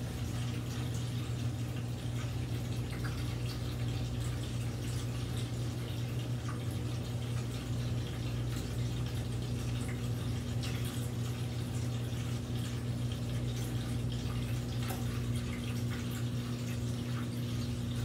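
Hava mini portable countertop dishwasher starting its cycle and filling with water: a steady low hum from its running pump, with faint water noise.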